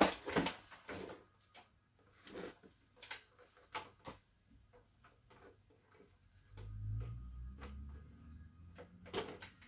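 Scattered light clicks and knocks from handling a plastic 1/10-scale RC car and its hard plastic body shell on a table, with a low rumble for about two seconds near the end.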